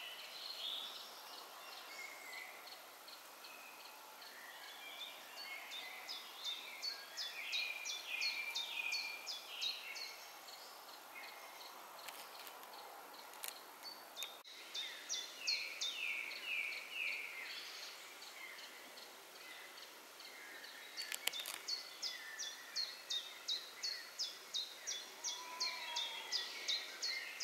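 Several songbirds singing in a forest: long series of short, high, falling notes repeated a few times a second, with lower warbling phrases between them, over a faint steady background.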